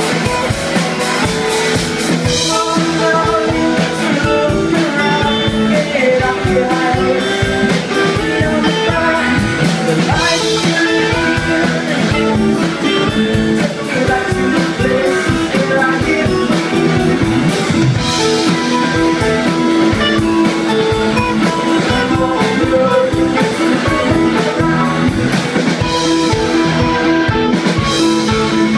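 A rock band playing live: distorted electric guitars, bass guitar and a drum kit, with a singing voice.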